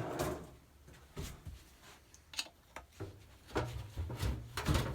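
Small screwdriver prying at the lock washer behind a classic Mini's flywheel bolt: a scattering of light clicks and scrapes.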